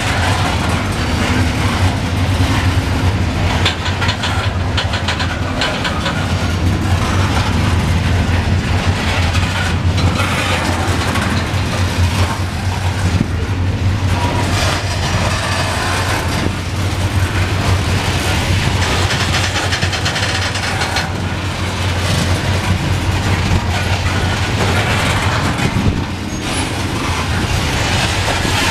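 Loaded coal hopper cars rolling slowly past on the rails: a steady heavy rumble with frequent clacks and knocks from the wheels and couplings.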